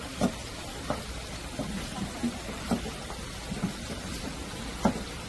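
Kitchen knife striking a plastic cutting board as a vegetable is sliced by hand, a string of irregular sharp knocks over a low steady hum.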